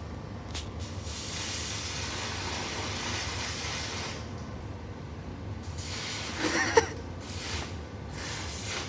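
Electric welding arc hissing steadily for about three seconds over a low hum, then stopping. A short vocal sound follows near the end.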